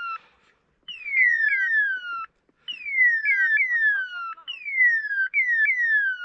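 Hunting dog's beeper collar sounding its point-mode signal: a string of electronic chirps, each sliding down in pitch, about two a second with brief pauses between runs. The collar gives this signal while the dog stands still on point.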